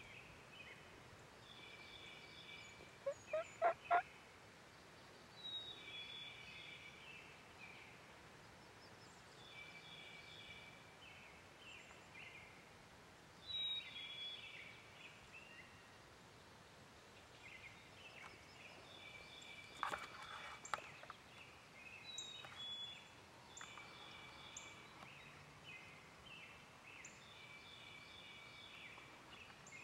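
Wild turkey gobbling: a quick, loud series of four notes about three seconds in, and another, weaker call around twenty seconds. Songbirds sing short repeated phrases throughout.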